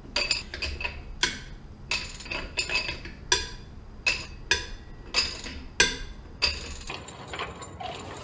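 Lug wrench and socket clinking against the lug nuts of a Chevrolet Silverado's rear wheel as the nuts are broken loose: about fifteen sharp metallic clinks, each with a short ring, irregularly spaced, stopping about seven seconds in.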